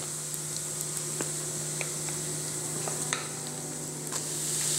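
Hot sesame oil sizzling steadily in a small stainless steel pan, tempering mustard seeds with asafoetida and fenugreek powder, with a few scattered small pops from the mustard seeds.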